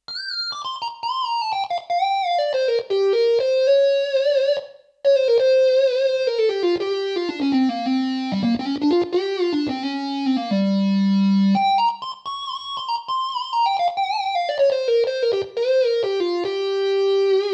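Roland GAIA SH-01 synthesizer playing a single-voice lead melody, the notes sliding into one another with vibrato on the held ones. There is a brief gap about five seconds in, and it sinks to a low held note about ten and a half seconds in before climbing back up.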